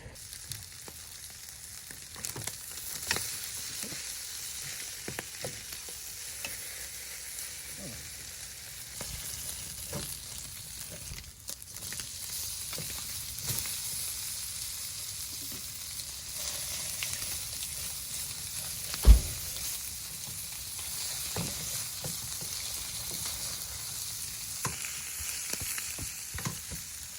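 Food sizzling in a pan over a campfire: a steady high hiss with scattered small clicks, and one loud knock about 19 seconds in.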